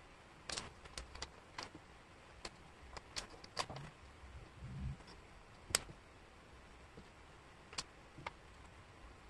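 Wooden jigsaw puzzle pieces clicking and tapping against each other and the tabletop as they are picked up and fitted: light irregular clicks, the sharpest a little before six seconds in, with a soft brushing sound around the middle.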